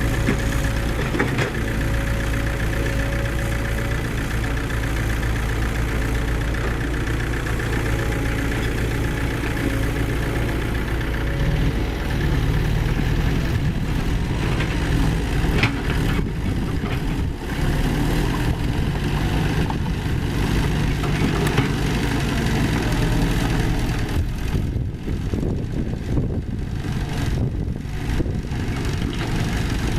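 Diesel engines of heavy construction machinery running steadily, the engine note changing about twelve seconds in, with a few sharp knocks around the middle.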